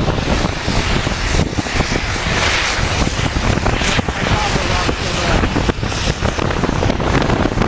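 Wind buffeting a small handheld device's microphone on an open chairlift, a loud, steady rush with many small knocks and bumps through it.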